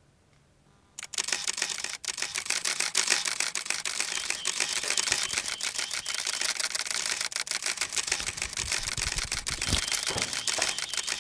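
Camera shutters clicking in rapid succession, a dense run of clicks that starts about a second in and goes on for around ten seconds before cutting off.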